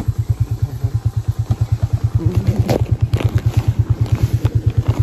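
Motorcycle engine running at a low, steady speed with an even pulsing beat, about nine beats a second, and a few clatters about halfway through as the bike rides over a rough dirt trail.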